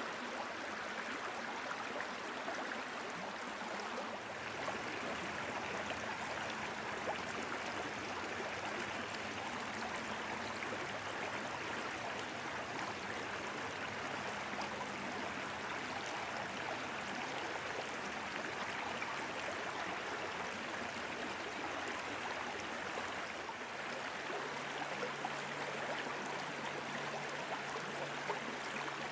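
Steady rush of flowing water, even and unbroken, with a faint low hum joining near the end.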